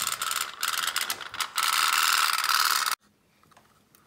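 Tin pop-pop steam boat running on water, its candle-heated boiler pulsing to make a fast, steady clicking rattle. The rattle cuts off abruptly about three seconds in.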